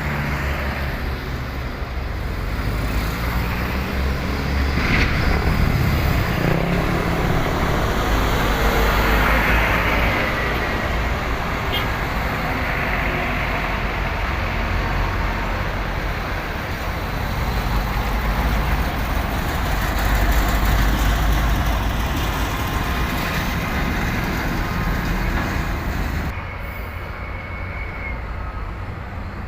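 Heavy trucks and other traffic climbing a road incline: a continuous rumble of engines and tyres that swells as vehicles pass, loudest twice, and eases off near the end.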